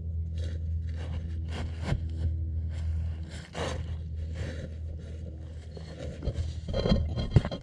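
Footsteps rustling and scraping through dry grass and leaves, about two a second, over a steady low wind rumble on the microphone, louder in the last second or so.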